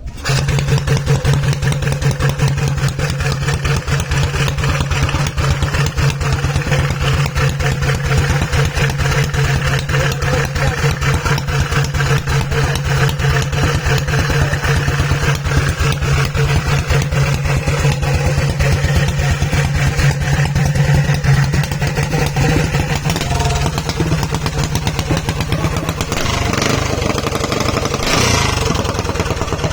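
Yamada 18 hp engine running loud and steady, with rapid even firing pulses and a steady low note. The sound comes in suddenly at the start, and about two-thirds of the way through the steady note gives way to a rougher, less even run.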